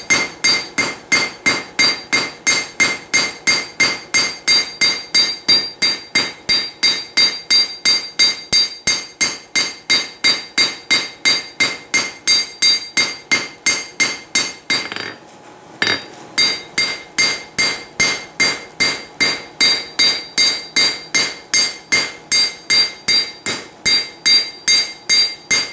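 Hand hammer striking a hot railroad-spike blade on a steel anvil in steady blows, about three a second, each with a bright anvil ring, with a pause of about a second partway through. The smith is cleaning up and drawing out the blade of a small froe.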